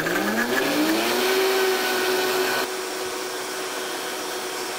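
High-powered countertop blender running on dried chilies and neutral oil for chili oil. Its motor whine climbs in pitch as it spins up over the first second or so, then holds steady at full speed. The sound gets somewhat quieter and duller abruptly about two and a half seconds in.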